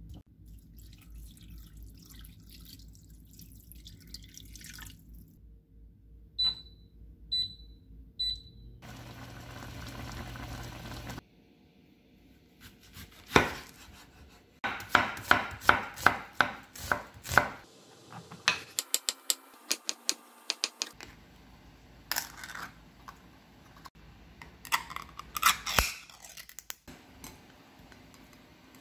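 A kitchen knife chopping an onion on a wooden cutting board: a run of sharp, even knocks about three a second, coming in bursts, after softer handling noises.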